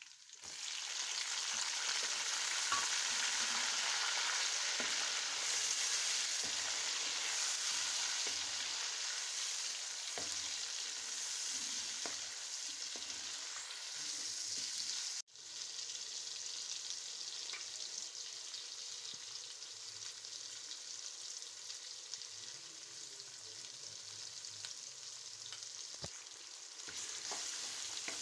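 Chicken karahi sizzling as it fries in hot oil, with a few clicks from stirring. The sizzle cuts out for an instant about halfway, then carries on a little quieter.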